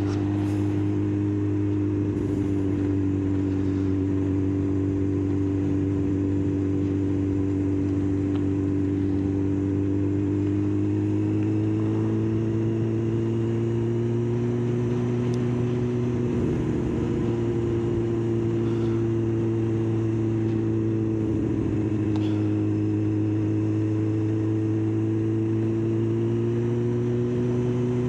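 Kawasaki ZX-9R's inline-four engine running at steady cruising revs, its pitch drifting gently up and down, heard from on the bike with road and wind rush underneath.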